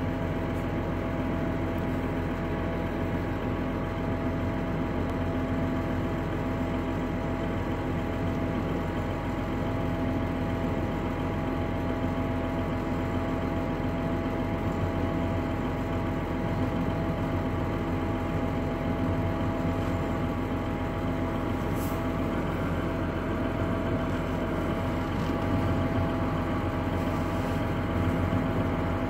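John Deere tractor's diesel engine running steadily at constant speed while pulling a feed wagon, a continuous hum with several held tones.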